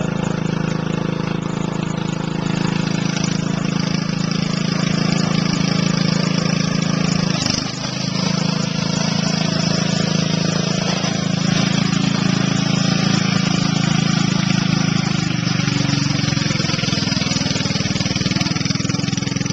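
Riding lawn mower's 14 hp overhead-valve engine running hard under load through a shot muffler. The engine note dips briefly about seven and a half seconds in, then picks back up.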